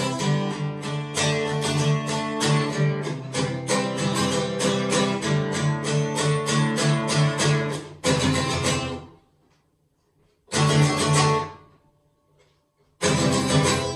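Acoustic guitar strummed in a steady rhythm; about eight seconds in the strumming stops and single chords are struck and left to ring, three in all, with short silent gaps between them.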